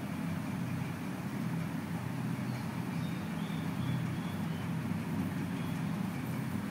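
Steady low background hum over a faint hiss, unbroken throughout.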